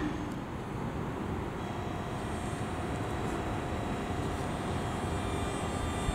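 Steady hum and rumble of a metronom electric locomotive with its double-deck coaches. A faint, steady high whine joins about two seconds in.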